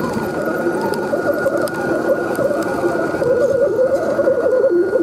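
Electric motor and gears of an Axial SCX10 RC crawler whining, the pitch wavering up and down with the throttle, over a steady high tone. The sound gets louder about three seconds in.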